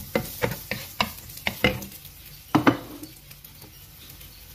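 Wooden spatula stirring sliced onions in olive oil in a nonstick frying pan, a quick run of knocks and scrapes against the pan over a soft sizzle. A louder double knock comes about two and a half seconds in, then only the sizzle remains.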